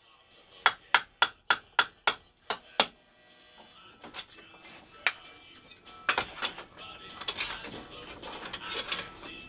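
Hammer striking a metal piece from an old work light held in a bench vise: about eight quick, sharp blows in the first three seconds, then scattered lighter knocks and clanks as the metal is worked.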